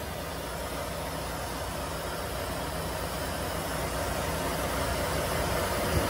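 Carrier Transicold Vector 8500MT trailer reefer unit running: a steady low engine drone with a fan hiss, just before it is switched off.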